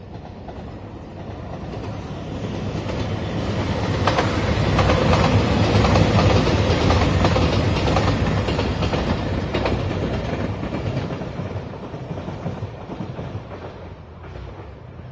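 JR Shikoku 2700 series diesel express train passing at speed, growing louder to a peak about six seconds in and then fading away, with its wheels clicking over the rail joints as it goes by.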